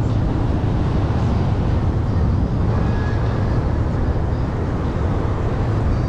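Steady wind rumbling on the microphone during a beach walk, with ocean surf washing behind it.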